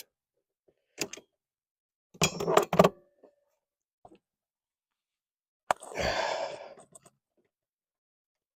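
Clicks and knocks of plastic gear-linkage rod ends being pushed and worked against their ball joints, stubborn to go on. The loudest is a short clatter of knocks a little over two seconds in, and a sharp click followed by a rustling rush comes about six seconds in.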